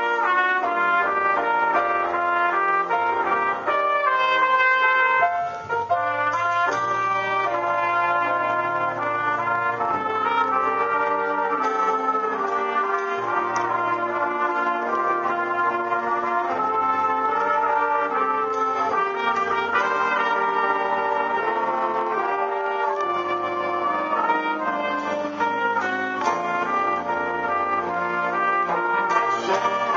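School jazz big band playing, with a featured trumpet solo over the band and the trumpet section, trombones and saxophones playing behind it.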